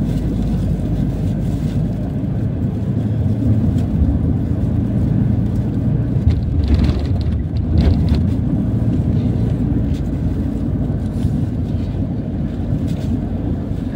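Engine and road noise heard from inside a vehicle moving at highway speed: a steady low rumble, with a brief louder rush about seven seconds in.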